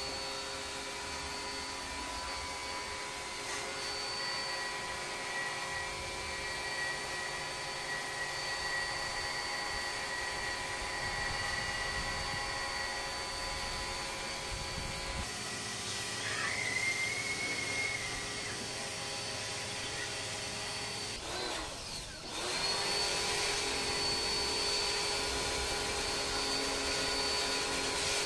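Electric pressure washer running, its motor and pump giving a steady whine while it sprays water. About three-quarters of the way through it winds down briefly and picks up again.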